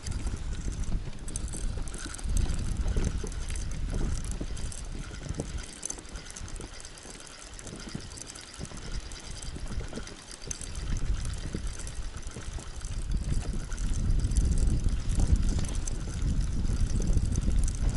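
Wind buffeting the microphone in gusts, a low rumble that rises and falls and is strongest near the end.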